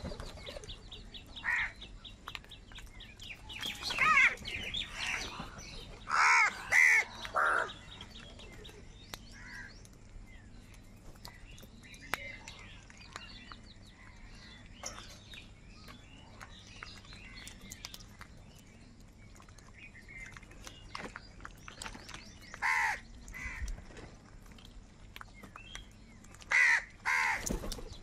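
House crows cawing: loud, harsh caws in clusters early on and again near the end, with a quieter stretch of fainter calls through the middle.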